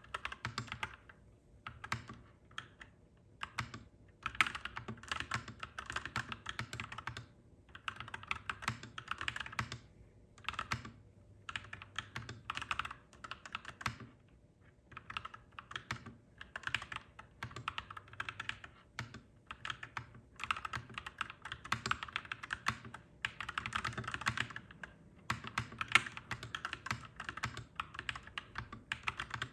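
Clacky mechanical keyboard being typed on in bursts of rapid keystrokes, with short pauses between them, over a steady low hum.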